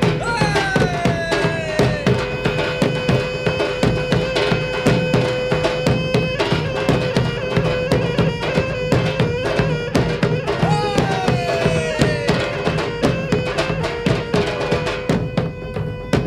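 Traditional Minangkabau music for the galombang dance: drums and ringing struck gong-chimes play a dense rhythm under a reedy wind melody that slides down in pitch twice, near the start and again about ten seconds in.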